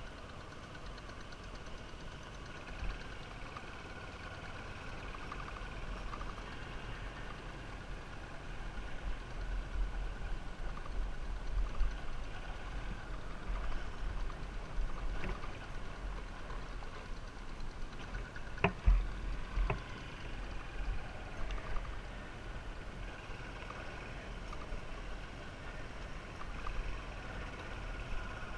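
Motorcycle engine running steadily while riding, with wind rumbling on the microphone. There are two sharp knocks about a second apart, roughly two-thirds of the way through.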